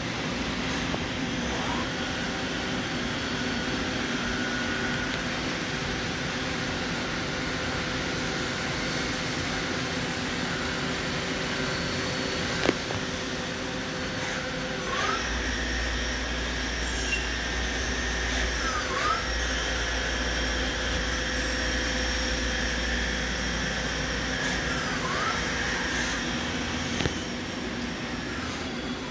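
Steady mechanical hum of a powered-up CNC lathe installation. About halfway through, a higher whine and a low rumble join, dipping briefly in pitch three times, then stop with a click; a single sharp click comes just before the whine starts.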